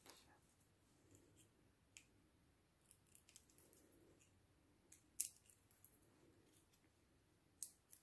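Faint scattered clicks and rustles of a strip of paper-backed foam adhesive pads being handled and peeled, with one sharper click about five seconds in.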